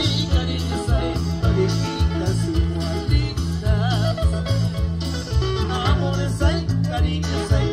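Live dance band playing loudly through the stage loudspeakers: a heavy, steady repeating bass beat, with singing and guitar above it.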